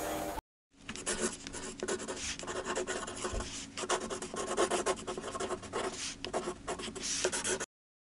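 Scratchy pen-on-paper writing sound effect: a run of quick rubbing strokes that starts about half a second in and cuts off abruptly near the end.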